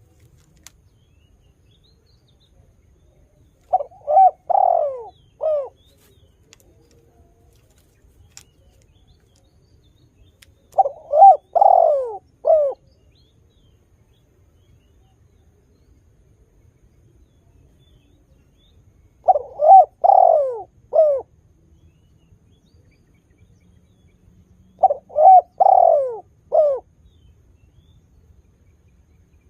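Spotted dove (tekukur) cooing: four phrases of several coo notes each, every phrase about two seconds long, repeated every five to eight seconds.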